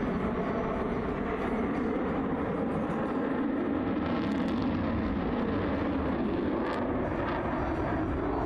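Jet noise from an F-22 Raptor's twin Pratt & Whitney F119 turbofan engines as the fighter flies its display overhead: a steady, loud, deep rumble.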